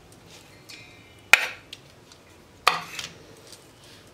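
Two sharp metallic clinks about a second and a half apart, each with a short ring: a steel spoon knocking against the steel strainer and mixing bowl while grated mango is scraped in.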